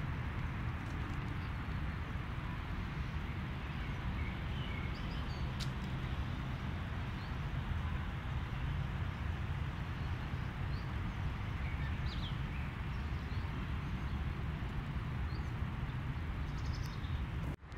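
Outdoor park ambience: a steady low rumble with faint, scattered bird chirps. The sound drops out briefly near the end.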